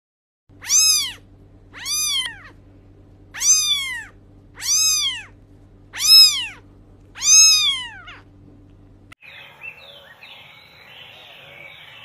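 A cat meowing six times at even intervals, each meow rising and then falling in pitch, over a low steady hum. About nine seconds in, this cuts off and faint outdoor chirping follows.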